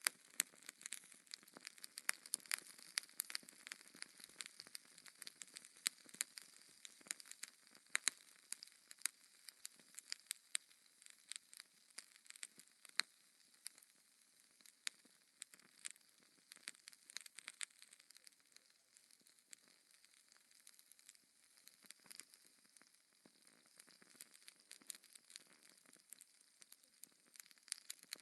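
Wood fire in a fireplace crackling, with many irregular sharp pops and snaps over a soft, steady hiss; the pops are densest in the first half.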